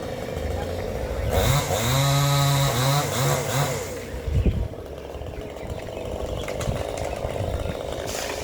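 Small engine of a home-built wood machine running, revved up for about two and a half seconds starting just over a second in, then dropping back to a steady run.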